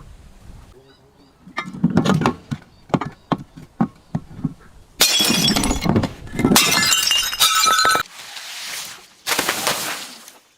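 Glass bottles being smashed and crushed: a quick run of sharp cracks and crunches, then several loud stretches of shattering with shards ringing, each starting and stopping abruptly.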